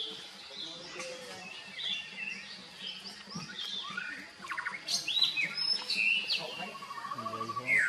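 Birds chirping: many short, high calls and quick up-and-down whistles. A faint steady hum runs underneath.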